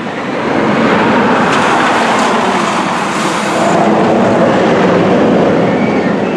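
Kingda Ka's steel train launched by its hydraulic launch system and rushing along the track and up the tower: a loud, continuous roar that swells about half a second in and holds.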